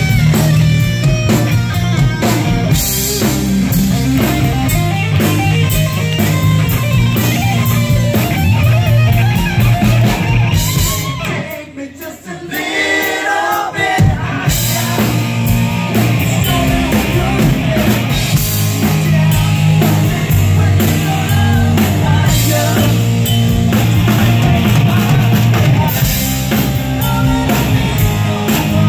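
Live rock band playing: electric guitars, drum kit and lead singing. About eleven seconds in the band drops out for a couple of seconds, leaving voices singing, then the full band crashes back in.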